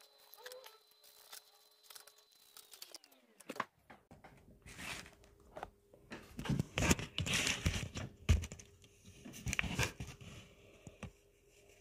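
Pencil scratching on paper with rustling of the page, in irregular bursts that grow busier after a few seconds.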